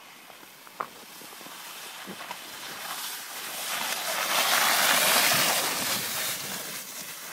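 A sled scraping and hissing over packed snow as it slides downhill, growing louder as it comes closer, loudest about five seconds in, then dying away as it stops.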